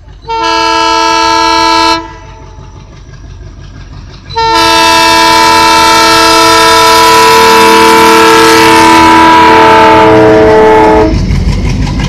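WDG-3A diesel locomotive sounding its horn: a short blast, then after a pause a long blast of about seven seconds. As the long blast ends, the low chugging of its ALCO diesel engine, pulling away from a halt, grows loud as the locomotive passes close.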